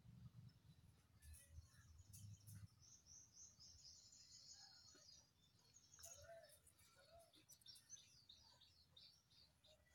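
Near silence: faint background room tone, with a few faint high chirps about three to five seconds in.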